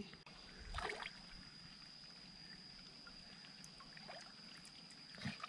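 Faint lake water sloshing and trickling around a large catfish held in the shallows, with small splashes about a second in and again near the end. A steady high-pitched insect trill runs underneath.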